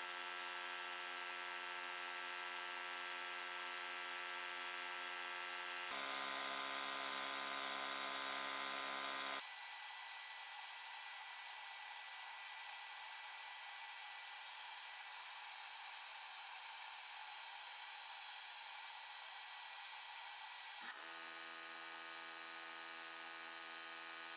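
Small handheld rotary tool running a pink abrasive stone against the steel of a Beretta M1934 pistol's frame and slide during rust removal: a steady whine over a constant hiss. The whine drops in pitch about six seconds in, fades to mostly hiss about three seconds later, and comes back a few seconds before the end.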